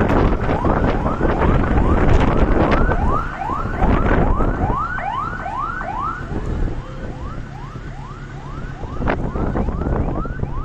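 Electronic siren or alarm yelping: a fast rising-and-falling sweep repeated about three times a second. Heavy wind buffets the microphone, strongest in the first few seconds.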